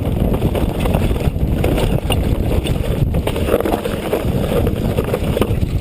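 Wind buffeting the microphone over the continuous rumble and rattle of an electric mountain bike descending a rough downhill trail.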